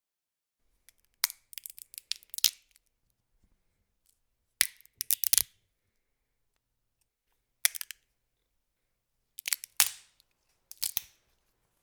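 Sleeping puppy snorting and snuffling: short, crackly clicks in clusters that come back about every two to three seconds.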